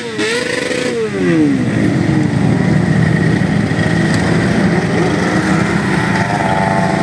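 A column of motorcycles riding past with their engines running. Near the start one bike's engine note falls away sharply, then a steady low rumble of several engines, with another bike's higher note coming in near the end.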